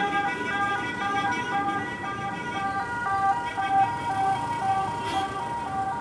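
A repeating electronic tune of short, stepped beeping notes, like a vehicle's melody alarm or jingle, plays over traffic noise.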